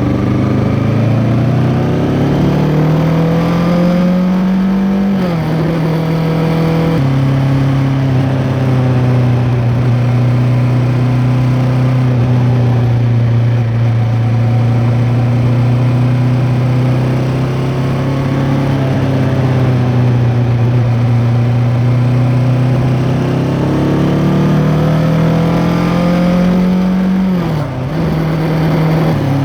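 2023 Kawasaki Ninja 650's parallel-twin engine through an Arrow X-Kone exhaust with its dB killer fitted, heard from under the seat cowl. The engine note climbs as the bike accelerates, drops in steps at upshifts about five and seven seconds in, holds steady while cruising, then climbs again and drops at another gear change near the end.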